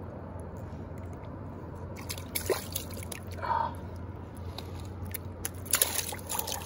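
Small clicks and handling noises as a rainbow trout is unhooked by hand at the water's edge, then a splash near the end as the trout is released into shallow water.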